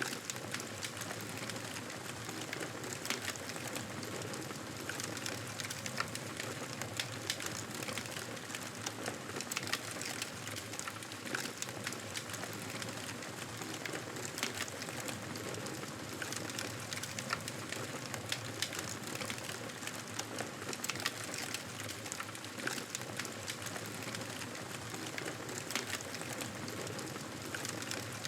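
Campfire burning: wood crackling and popping in many short, sharp snaps over a steady hiss of flame.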